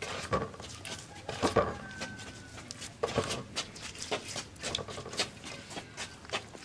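Wet squelching, smacking and clicking of hands rubbing spice marinade into a whole fish in an aluminium bowl, in irregular short strokes.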